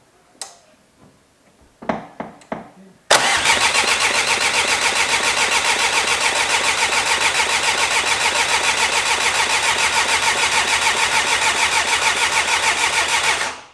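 Freshly rebuilt Volkswagen 1.9 TDI PD eight-valve four-cylinder turbodiesel starting: after a few short sounds it fires about three seconds in and runs loudly at idle with an even, rapid pulsing. The sound cuts off near the end.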